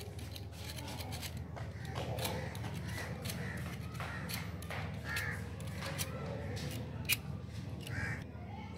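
Scattered small clicks and ticks of hands and tools working a thin coaxial cable, stripping and twisting the wire, over a steady low background hum, with a few faint bird calls.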